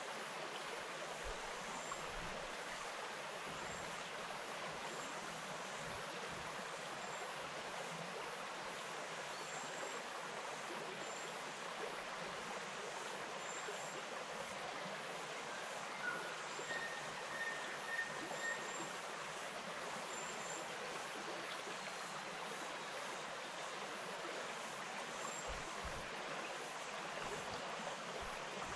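Bush stream flowing steadily, an even rush of water. A short run of high chirps comes a little past the middle, and faint high ticks repeat about every second and a half.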